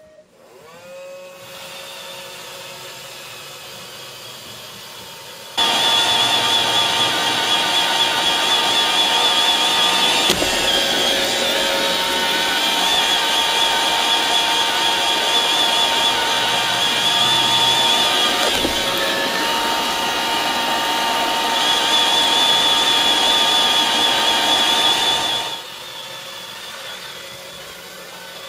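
iRobot Roomba robot vacuum running. Its motors spin up at the start to a steady hum. About six seconds in it becomes much louder, with a high whine, and it drops back to the quieter hum a few seconds before the end.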